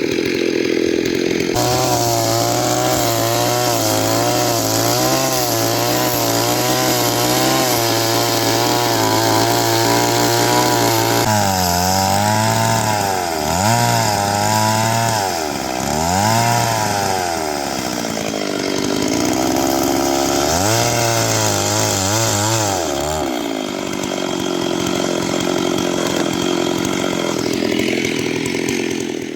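Two-stroke chainsaw running at high revs, cutting wood. About a third of the way in, the engine speed starts dipping and recovering again and again as the chain loads up in the cut. It then settles to a steadier, lower-pitched run for the last few seconds.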